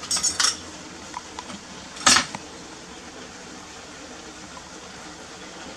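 Kitchen knife and dishes clicking: a quick cluster of knife taps on a plastic cutting board while limes are cut, a few small ticks, then one sharp, loud clack about two seconds in.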